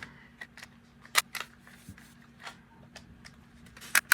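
Sharp plastic clicks and taps from handling the vacuum cleaner's plastic hose and fittings. There are a handful of separate clicks; the loudest come about a second in and near the end.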